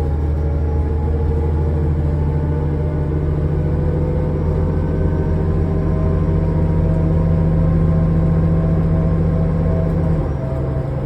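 Diesel engine and drivetrain of a 2005 New Flyer D40LF transit bus under way, a steady loud drone with a low hum that shifts pitch at the start and drops to a lower pitch about ten seconds in.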